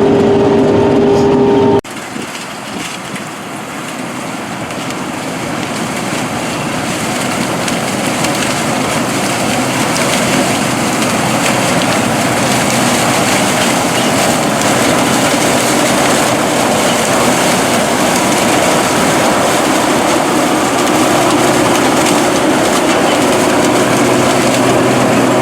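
Claas Mega 204 combine harvester at work in sunflower: a dense, even mechanical rushing noise that grows slowly louder. About two seconds in it replaces a steadier engine tone.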